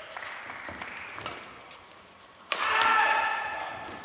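Badminton doubles rally: sharp cracks of rackets striking the shuttlecock, the loudest a hard hit about two and a half seconds in. High squeaks from players' shoes on the court follow that hit.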